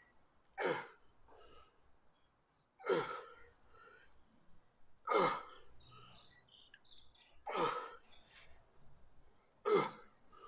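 A man exhaling hard with each rep of dumbbell hammer curls: five short, forceful breaths out, about two seconds apart.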